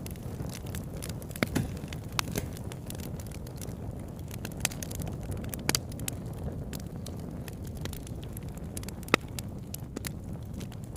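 Bonfire burning: a steady low rumble of flames with irregular sharp crackles and pops of burning wood, one louder pop about nine seconds in.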